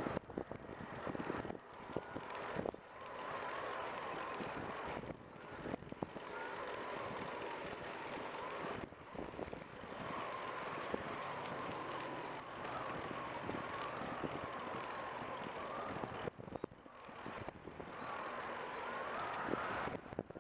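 Steady rushing ride noise from a recumbent tadpole trike rolling along a concrete path: tyre noise and wind on the microphone, with short knocks every few seconds as the wheels cross the path joints, and a faint wavering whine.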